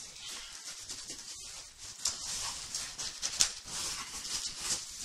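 Paper and cardboard packaging rustling and crinkling as it is handled, with a few sharper crackles, the loudest a little past the middle.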